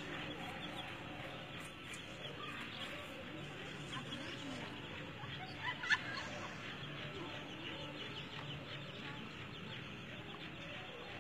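Yellow chicks peeping almost continuously in short, quick, falling chirps, over the low clucking of their mother hen; one louder peep about six seconds in.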